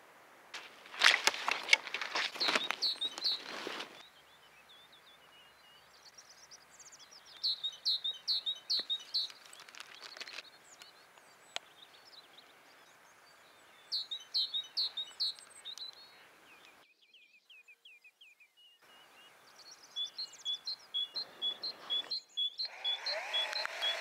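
Small songbirds singing in a birch wood, several phrases of quick repeated chirps. A noisy rustling burst comes about a second in and another near the end.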